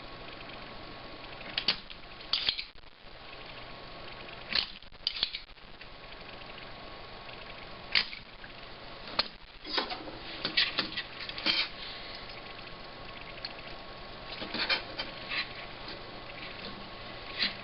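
Scattered light clicks and taps of small hand tools against a circuit board while a new electrolytic capacitor is fitted and soldered in, some coming in quick clusters, over a steady background hiss with a faint high tone.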